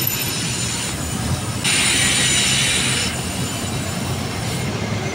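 Train passing on the rail line, a steady rumble with high thin tones. It gets louder and higher-pitched for just over a second, about a second and a half in.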